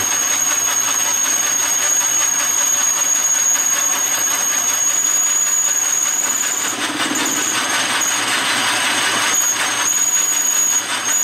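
Small metal lathe running and cutting down a steel spacer throwing sparks, a steady harsh cutting hiss with a high whine over it.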